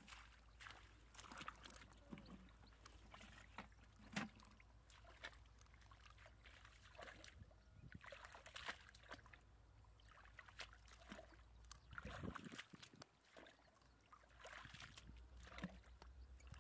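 Faint, irregular splashing and sloshing of shallow muddy water as hands grope through it along the bottom.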